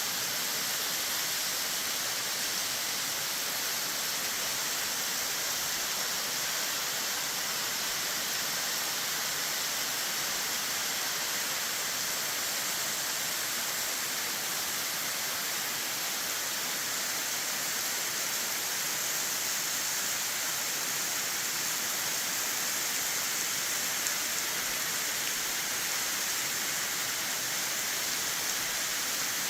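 Waterfall cascading off a cliff in heavy spring snowmelt flow: a steady, unbroken hiss of falling and splashing water.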